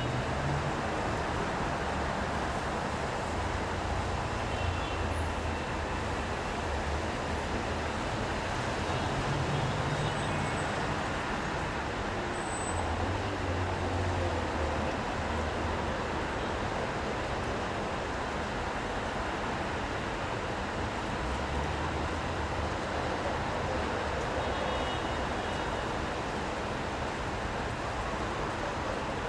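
City street traffic in the rain: vehicles pass one after another with low engine rumbles that swell and fade, over a steady hiss of rain and wet road.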